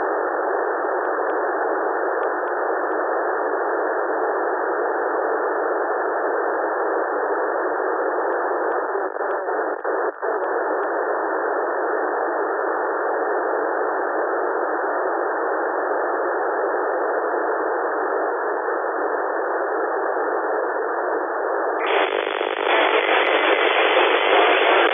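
Steady static hiss from an SDR receiver tuned to 145.800 MHz in narrowband FM, with no station yet quieting it. The hiss is cut to a narrow voice band, dips briefly a couple of times near the middle, and about 22 seconds in widens and turns brighter.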